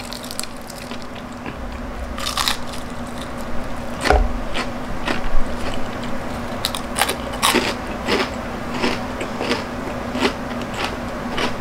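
Crispy batter of fried chicken crunching as it is pulled apart by hand and bitten and chewed: irregular crisp crunches and crackles.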